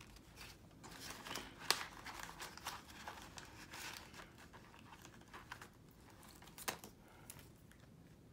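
Faint rustling and crinkling of paper banknotes and a clear plastic zipper envelope being handled, with scattered small clicks; the sharpest click comes about a second and a half in, and another near the end.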